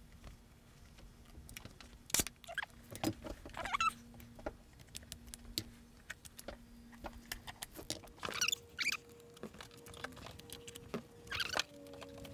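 Scissors cutting heavy woven upholstery fabric: several short snips scattered among light clicks and fabric handling, over a faint steady hum.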